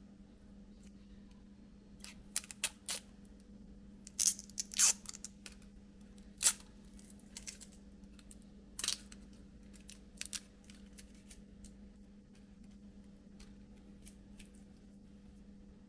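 Hands handling smart-glasses packaging: a scatter of short clicks, taps and rustles, with the loudest ones between about 2 and 11 seconds in, over a faint steady hum.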